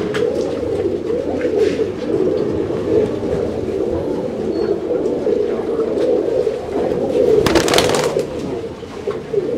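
Many domestic pigeons cooing at once, a steady overlapping coo. A brief rustling burst comes about seven and a half seconds in.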